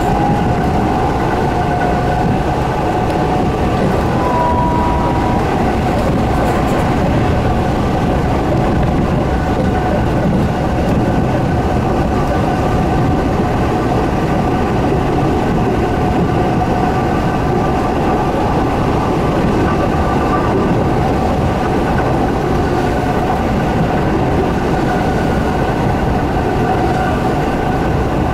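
Keihan Electric Railway train running at a steady speed, heard from inside the car: an even running rumble with a constant whine of several steady tones over it, and a brief higher tone about four seconds in.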